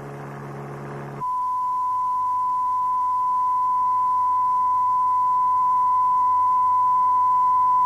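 A brief low hum, then from about a second in a single steady pure test tone at about 1,000 hertz, the kind of whine heard from a TV test card or from transmission gears, played to train the ear to recognise frequencies.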